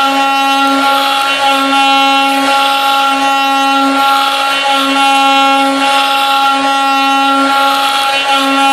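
CNC router spindle running at speed, its end mill cutting a pocket into a timber block: a steady high-pitched whine over the rasp of the cutter in the wood, swelling and easing about once a second as the cut goes on.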